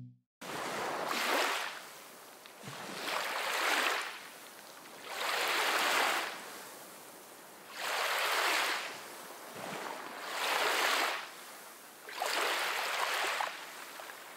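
Ocean surf washing in and drawing back: six swells of waves, each rising and fading, about every two and a half seconds.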